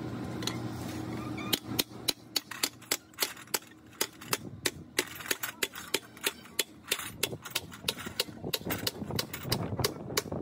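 Hand hammer striking metal during truck diesel engine repair work, in a steady run of sharp blows at about three a second that starts about a second and a half in. A steady low hum comes before the blows.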